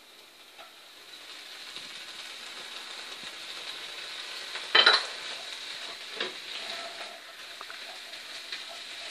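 Potato and onion taco filling sizzling in oil in a frying pan while a wooden spoon stirs and scrapes through it; the sizzle builds over the first couple of seconds. A single sharp knock, the loudest sound, comes about halfway through, with lighter knocks soon after.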